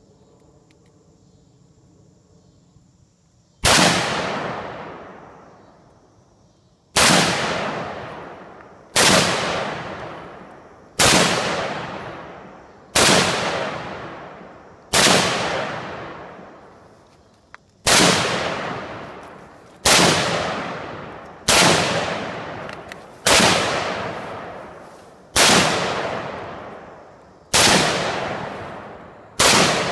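Robinson Arms XCR-L semi-automatic rifle in 5.56 NATO fired in slow, single aimed shots, about a dozen of them roughly two seconds apart, starting a few seconds in. Each shot is a sharp loud crack that trails off over a second or two.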